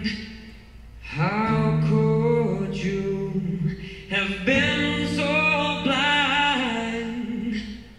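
Singing in two long phrases, the first starting about a second in and the second about four and a half seconds in, stopping shortly before the end.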